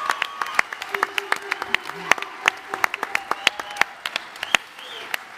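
Large convention-hall audience applauding, with scattered held whoops from the crowd; the clapping thins out and dies down toward the end.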